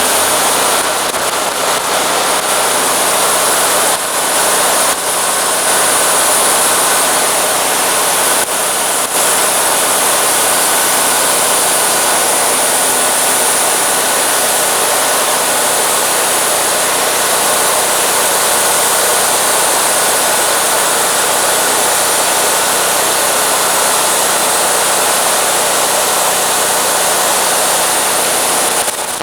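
Wood-Mizer LT40 band sawmill running under load, its band blade cutting through a driftwood log with a loud, steady hiss over the hum of the mill's engine.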